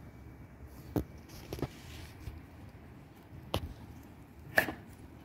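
Handling noise from bungee cord being knotted over a plastic kayak hull: four or so short sharp taps and clicks against a low background, the loudest near the end.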